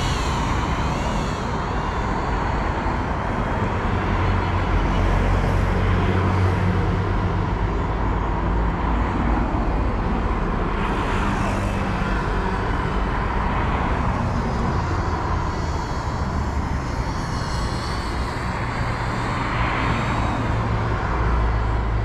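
GEPRC Cinelog35 cinewhoop's propellers buzzing as it flies, the whine wavering up and down in pitch with the throttle, over a steady low rumble.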